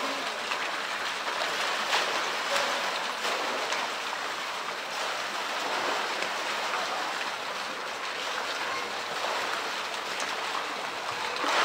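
Steady splashing of a jet of water pouring into a pool, with a few light splashes as a polar bear moves in the water.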